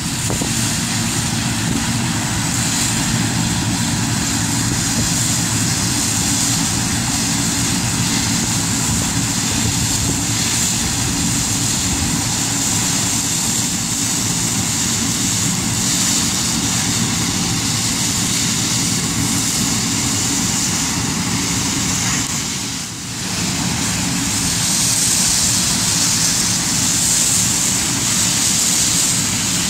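Combine harvester running steadily at work: a constant engine drone under a strong high hiss, dipping briefly about three-quarters of the way through.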